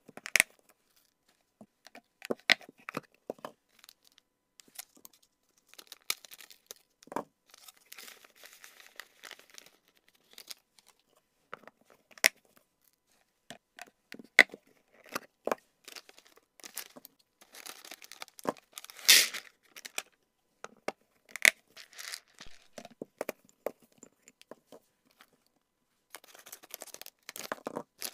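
Clear plastic storage boxes and plastic snack pouches being handled: scattered sharp clicks of snap-latch lids and the crinkling of pouches, with one longer, louder tearing sound a little past the middle as a pouch is torn open.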